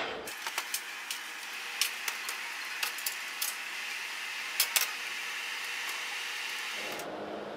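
Coal forge fire hissing steadily, with sharp pops, crackles and clinks as the burning coals are worked with a long iron poker. The hiss cuts in just after the start and cuts off shortly before the end.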